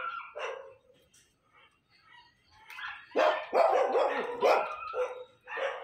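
A dog barking off-screen: a cluster of loud barks about three seconds in, then two more near the end.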